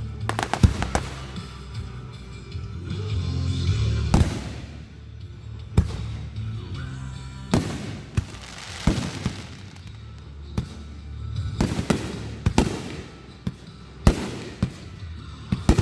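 Aerial fireworks shells bursting in sharp bangs every second or two, some followed by crackling. Music with sustained low notes plays underneath.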